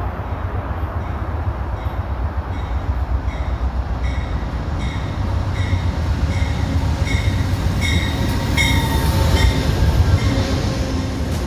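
Amtrak passenger train rolling into a station: a steady low rumble of the train, with a bell dinging about twice a second and a faint squeal of wheels or brakes near the end as it slows.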